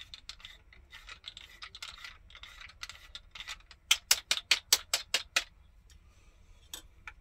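Handheld nutmeg mill being twisted, grinding nutmeg: soft scraping clicks, then a louder run of about eight sharp ratcheting clicks midway, roughly five a second.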